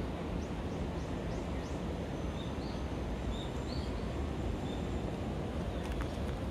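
Outdoor street ambience: a steady low rumble with birds chirping over it. A quick run of about five chirps comes in the first two seconds, then a few short calls follow.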